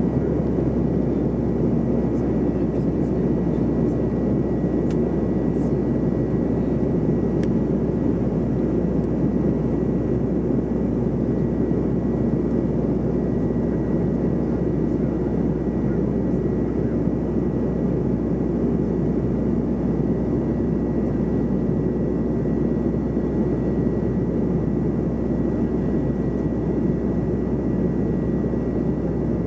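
Steady cabin noise inside a Bombardier CRJ700 airliner in flight: the constant rumble of airflow and its rear-mounted turbofan engines, with a faint high steady whine above it.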